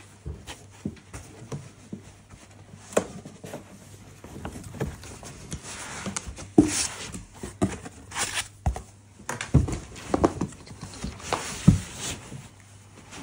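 Unboxing handling noise: a non-woven fabric dust cover rustling as it is pulled and lifted off a suitcase, with irregular knocks and thumps of the case against the cardboard box and foam lining, loudest around the middle and near the end.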